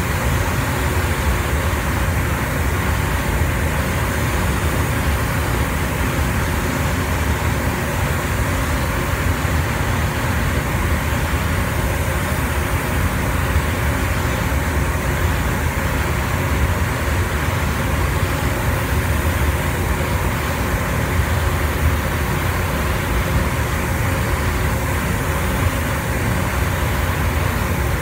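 Steady rush of air while a car is spray-painted in a paint booth: the air spray gun hissing over the booth's airflow, with a low rumble underneath and no breaks.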